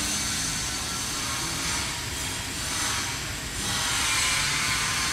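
TIG welding arc hissing steadily while running the root pass on a carbon steel pipe, rising and falling slightly a couple of times.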